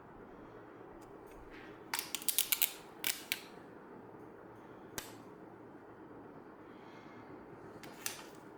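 Small sharp clicks and taps from handling: a quick run of about half a dozen about two seconds in, two or three more just after three seconds, then single clicks about five and eight seconds in.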